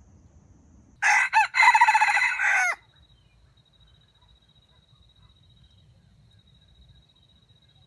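Red junglefowl rooster crowing once, about a second in. The crow is short and loud, under two seconds long, with a brief break early on and a falling end. A faint steady high whine continues afterwards.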